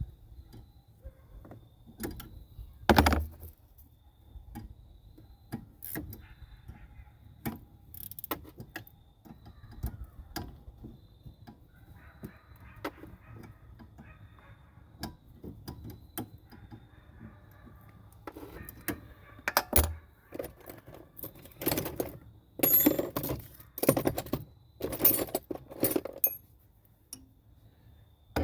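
Metal hand tools and parts being handled: scattered sharp clicks and knocks, then a quicker run of clinking and clattering near the end.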